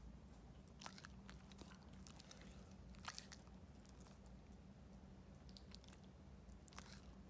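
Basenji's mouth sounds close to the microphone: faint crunchy chewing and lip-licking clicks. There are short clusters about a second in, around three seconds and near the end.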